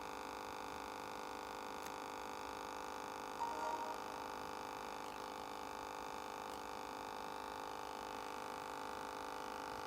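Homemade cooling stand's fans running with an abnormal noise: a steady hum made of many whining tones at once, with a brief warble about three and a half seconds in.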